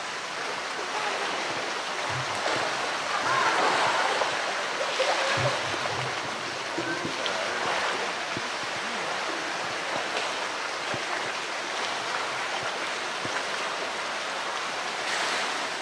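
Steady rush of running water in a polar bear pool, with splashing as the bear pushes a blue plastic barrel through the water. There are a couple of dull knocks a few seconds in.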